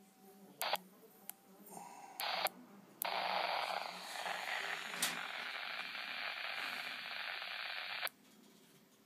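Yaesu VX-8E handheld radio's speaker giving a steady rush of hiss for about five seconds, with a few clicks before it starts, then cutting off suddenly.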